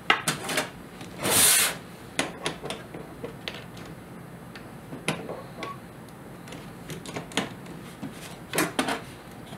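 Small stainless steel workholding parts and a T-handle Allen key clicking and knocking against a micro ball vise and a steel bench plate as a bolt is fitted and tightened. There is a longer burst of metal scraping noise about a second and a half in, and two louder knocks near the end.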